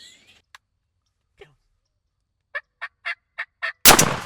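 A turkey calling five short notes in quick succession, then a single loud shotgun blast near the end as a turkey is shot.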